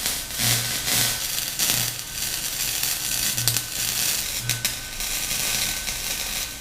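Wire-feed welder arc crackling steadily while a seam is welded, over a low hum that swells on and off. The arc stops abruptly at the very end.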